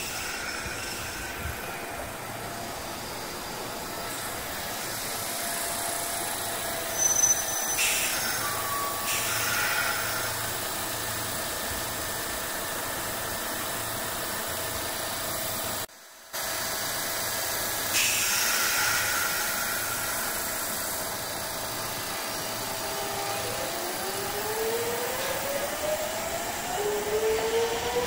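Sotetsu electric commuter train standing at a station platform with a steady hum, and a couple of brief hisses. From about four seconds before the end, the whine of its traction motors rises in pitch as it starts to pull away.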